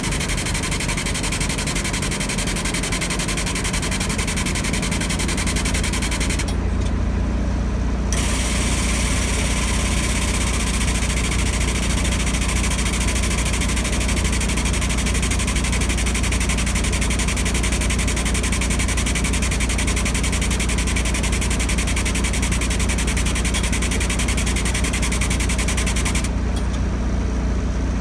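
Diesel engine idling steadily with a low hum, and a high hiss over it that cuts out briefly twice.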